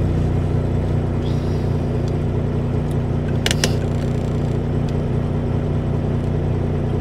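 Semi-truck's diesel engine idling, heard inside the cab as a steady low hum. A brief cluster of light clicks comes about halfway through.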